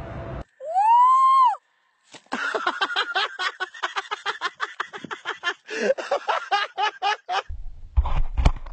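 A person's high shriek lasting about a second, then after a short pause several seconds of rapid laughter. Near the end a low rumble and a thump come in.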